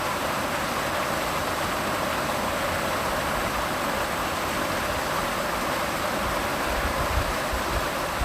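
Waterfall rushing, a steady even roar of falling water, with a few low bumps on the microphone near the end.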